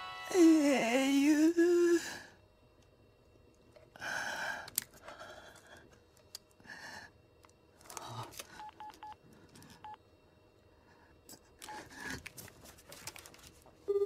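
A phone being dialled: a few short keypad beeps a little past the middle, among small handling noises. A voice wavers up and down for the first two seconds.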